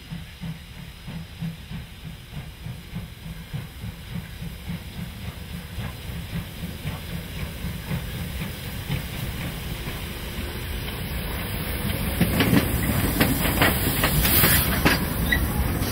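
DB class 50 two-cylinder steam locomotive moving slowly with its cylinder drain cocks open: hissing steam and regular chuffs that grow louder as the engine draws near and passes close by. Sharp clicks come near the end as it goes past.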